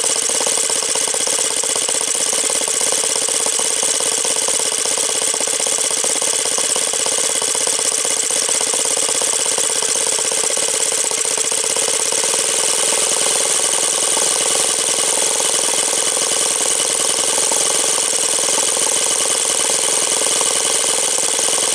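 Saito FA-125a four-stroke glow model aircraft engine running steadily on a test stand and spinning its propeller, on its first run.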